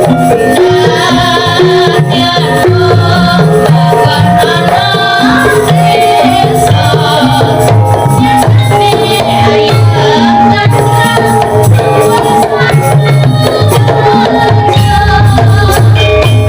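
Javanese gamelan ensemble playing continuously: ringing metallophone notes over a steady pattern of kendang hand-drum strokes in the jaipong style.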